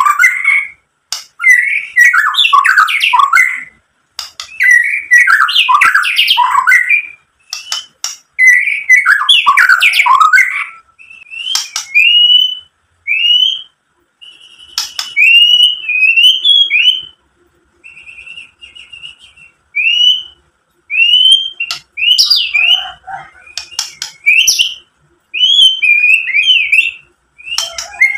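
White-rumped shama (murai batu) singing: rapid, varied phrases for about the first ten seconds, then a run of short rising whistles roughly one a second, and dense song again near the end.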